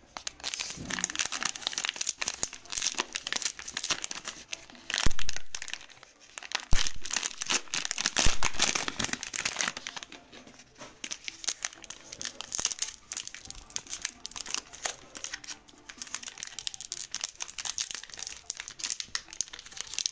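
Plastic wrapper of a Panini Optic basketball card pack crinkling as it is handled and torn open, with two sharp thumps about five and seven seconds in.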